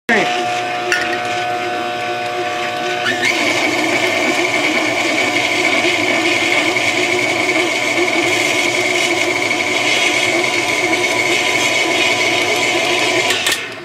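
KitchenAid stand mixer running, its dough hook turning flour into dough: a loud, steady motor whine whose tone changes about three seconds in, then holds until it cuts off near the end.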